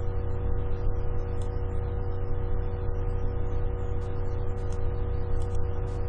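Background music: a steady held chord over a low hum, unchanging throughout.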